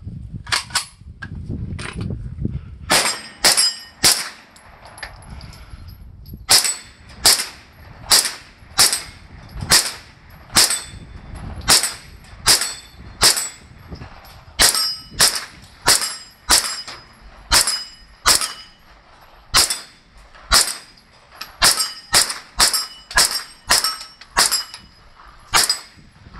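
Kalashnikov USA KP9 9mm pistol firing steady semi-automatic shots, about two a second, starting about three seconds in with a short pause near six seconds. Each shot is followed by a brief metallic ring of a steel target being hit.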